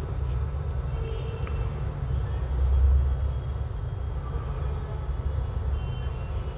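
Steady low machine rumble, swelling a little about three seconds in.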